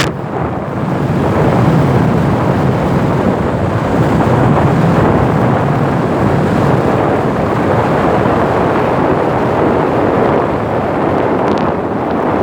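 Wind buffeting the microphone, a steady rough noise with no distinct events.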